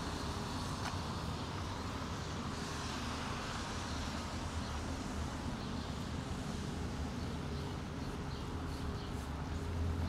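Steady street ambience on a rainy day: an even hiss over a low rumble, with a faint steady hum and a few faint ticks near the end.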